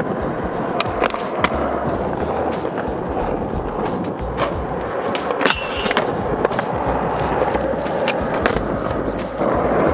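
Skateboard wheels rolling steadily over concrete, with sharp clacks scattered throughout as the board crosses seams and its tail and trucks knock.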